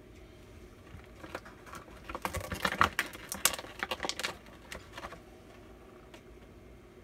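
Small hard plastic toys being handled, giving a rapid flurry of light clicks and taps. It starts about a second in, is densest in the middle, and dies away about five seconds in.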